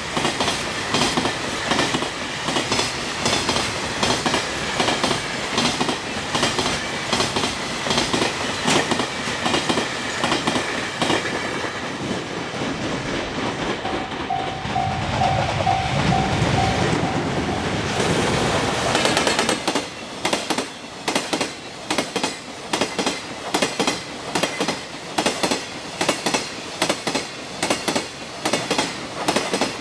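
Freight train wagons running over rail joints at speed: a continuous clickety-clack of wheelsets striking the joints, settling into an even, regular rhythm in the last third.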